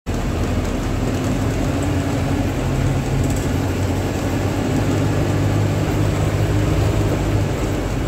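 A vehicle's engine droning steadily, with road and wind noise, heard from inside the moving vehicle.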